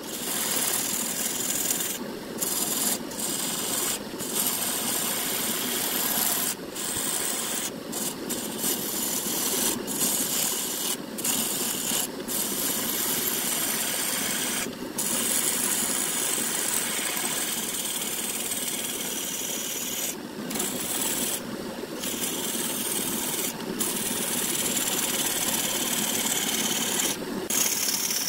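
A wooden vase blank spinning on a woodturning lathe, worked with a hand tool: a continuous scraping hiss of tool against wood. It breaks off briefly every few seconds as the tool leaves the wood.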